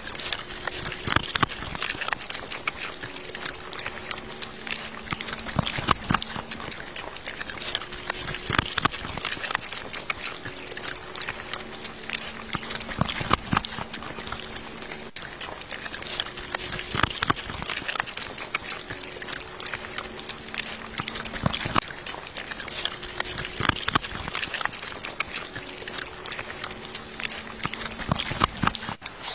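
Several dogs eating grilled fish scraps, chewing and licking: a dense, irregular run of wet smacks and crunches.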